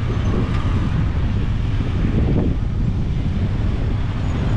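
Strong wind buffeting the microphone, a steady low rumble, with road traffic passing on the street; one vehicle passes about two seconds in.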